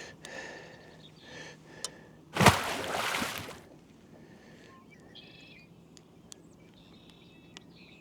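Handling a freshly landed rainbow trout while unhooking it: a loud rustling, splashing burst lasting about a second, starting about two and a half seconds in, with small clicks. Faint bird chirps follow later.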